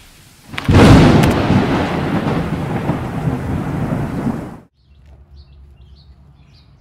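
Loud intro sound effect: a sudden thunder-like crash about half a second in, with a few sharp clicks at its start, that rumbles on for about four seconds and then cuts off. Faint bird chirps follow near the end.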